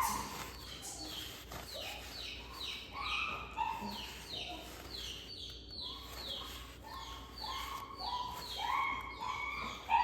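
Repeated short squeaks, about two a second, each falling slightly in pitch: a paper towel rubbing back and forth as dirt is wiped off around the engine's oil drain bolt.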